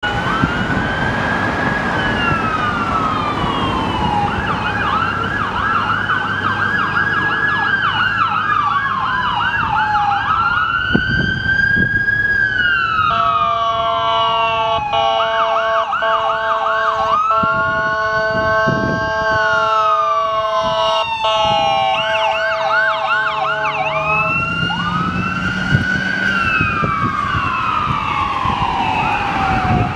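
Ambulance electronic siren switching between a slow rising-and-falling wail and a fast yelp. A steady horn-like tone is held for about ten seconds in the middle.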